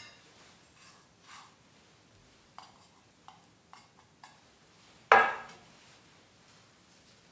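Quiet kitchen handling of a small enamel bowl: a few light clicks as its contents are scraped into a mixing bowl, then one louder knock with a short ring about five seconds in as the bowl is set down on the board.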